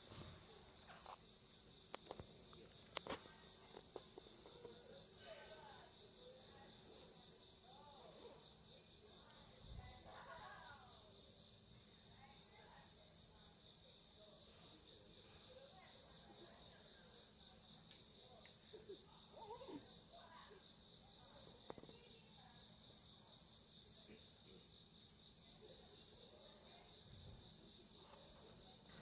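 Insects calling in a continuous, steady high-pitched chorus, with a few faint clicks in the first seconds and faint distant voices now and then.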